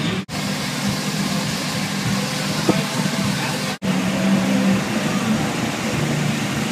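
Portable generator engine running steadily with a constant low hum, powering the food trailer. The sound drops out abruptly for an instant twice, about a quarter second in and just before four seconds.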